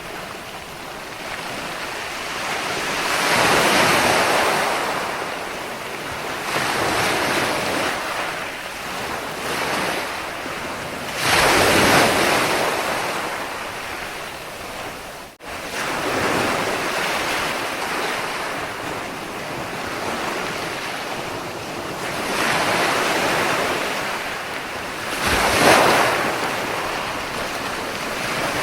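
Ocean waves washing onto a shore in a continuous rush, swelling and fading, with louder breakers about 4, 12 and 26 seconds in. There is a sudden brief cut in the sound about 15 seconds in.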